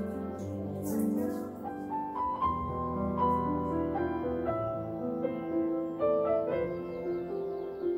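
Background piano music, a slow run of sustained notes.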